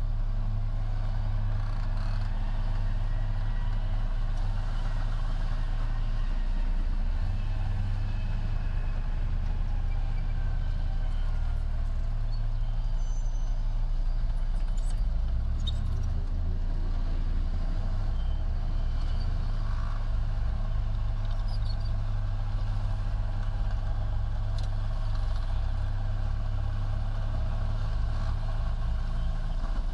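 Heavy diesel engine of earthmoving machinery running steadily, its pitch shifting up and down several times as the revs change under load.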